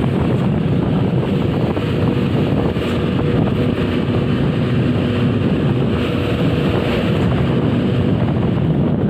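Steady running noise of a moving road vehicle, with wind rushing over the microphone.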